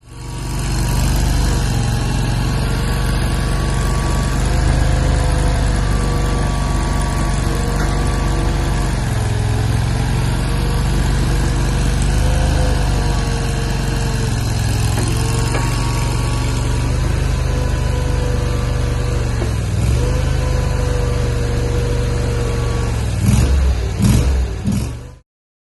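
Micro skid steer loader's engine running steadily, its pitch dipping and rising now and then. A few heavy knocks come near the end, then the sound cuts off abruptly.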